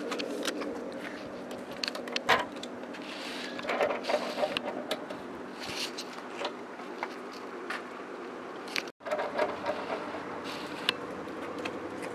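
Scattered clicks, scrapes and rustles of handling and footsteps as the camera is carried, over a steady low hum whose source can't be picked out. The sound drops out for an instant about nine seconds in.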